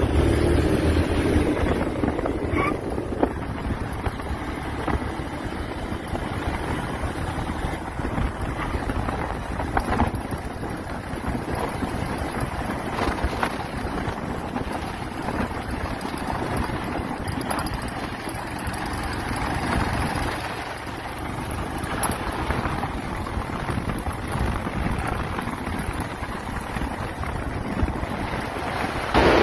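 Motorcycle riding along a dirt road: wind rushing over the microphone with the bike's engine and tyre noise underneath, a little louder in the first couple of seconds as it passes close by a van.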